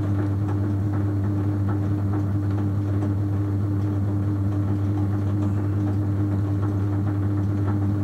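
Electric potter's wheel running with a steady low hum, with faint wet rubbing and squelching from hands and a sponge on the spinning clay.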